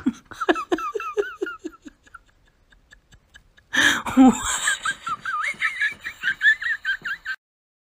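A person laughing in quick, rhythmic bursts, then laughing again more loudly and at a higher pitch from about four seconds in, stopping shortly before the end.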